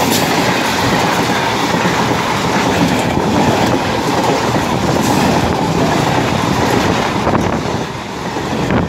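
Electric multiple unit (EMU) commuter train running past close by at speed: a loud, steady rush and rumble of its coaches, with the wheels clattering over the rail joints.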